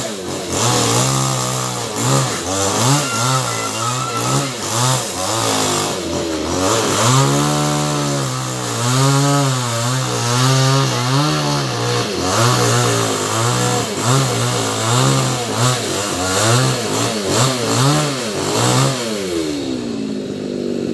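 Two-stroke petrol chainsaw (New West 588) working on a fallen coconut palm trunk, its engine revving up and dropping back over and over as it cuts. Near the end the revs fall away to a lower idle.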